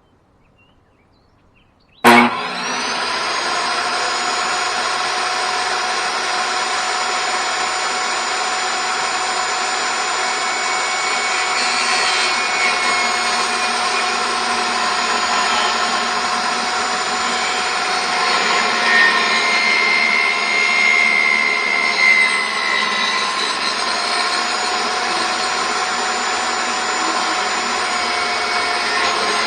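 Table saw switched on about two seconds in, then running steadily with a loud motor whine while its blade cuts a rabbet along a wooden board for a beehive box; the tone shifts briefly in the middle as the blade works through the wood.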